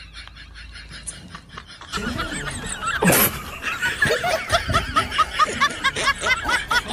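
A person laughing in rapid repeated bursts, starting about two seconds in, with a sharp loud noise about a second later.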